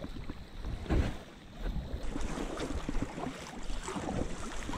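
Water splashing and lapping around a kayak, with wind buffeting the microphone. A dull knock comes about a second in.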